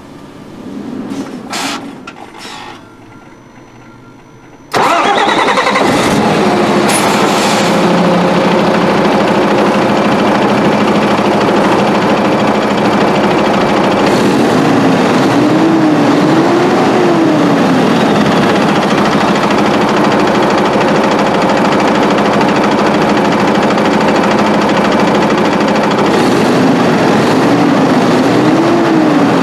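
Diesel engine of a 2023 KAMAZ 54901 truck being started: a few light clicks, then about five seconds in the engine fires abruptly and settles into steady running. A faint wavering tone rises and falls twice over the engine.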